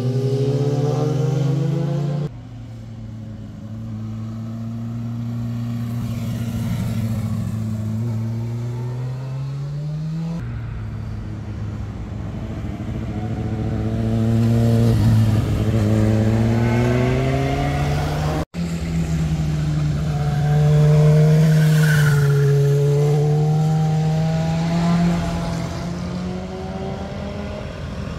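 Sport motorcycles ridden through a hairpin bend, their engines revving, with the pitch rising as they accelerate out of the curve. The sound breaks off abruptly a few times where one pass ends and the next begins.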